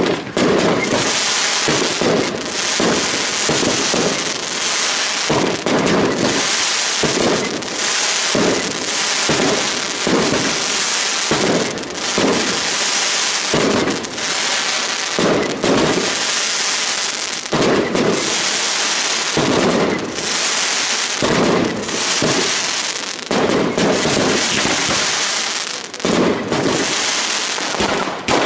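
Aerial fireworks display: a dense, unbroken barrage of bangs from bursting shells, with continuous crackling in between.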